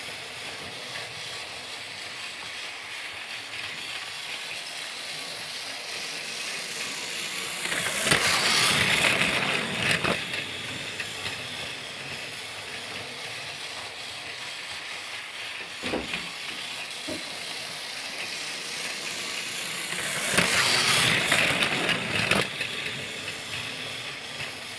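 Motorised Thomas the Tank Engine toy train running, a steady mechanical whirr and rattle that swells louder twice for a couple of seconds each, with a few sharp clicks in between.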